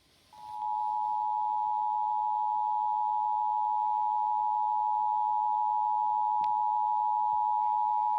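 Emergency Alert System attention signal on a radio broadcast: the steady two-tone alarm of 853 and 960 Hz played together. It starts a fraction of a second in and holds unbroken, marking the start of a Required Monthly Test.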